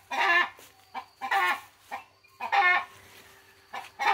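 Hens cackling in a loud racket: short clucks, each leading into a long, drawn-out squawk, about four times over.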